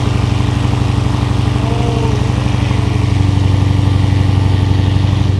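Lexus RC F's 5.0-litre V8 idling steadily and loud through newly fitted PPE unequal-length exhaust headers.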